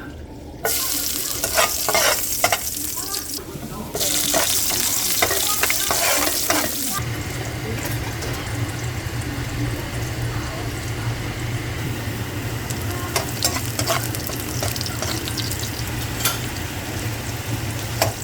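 Food sizzling and frying in a pan while it is stirred, with frequent clicks and scrapes of the utensil against the pan. The sizzle changes abruptly a few times, and a low steady hum joins about seven seconds in.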